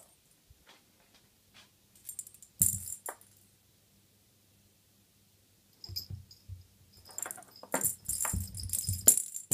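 A cat's jingle-bell toy jingling in bursts, with soft thumps, as the cat bats and pounces on it: a short burst about two and a half seconds in, then a busier run of jingling from about six seconds on.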